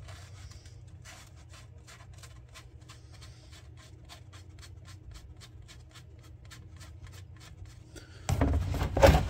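Ratchet clicking steadily, about three clicks a second, as the 22 mm drain plug on a 5R55S automatic transmission is backed out. About eight seconds in, a much louder, rough noise sets in.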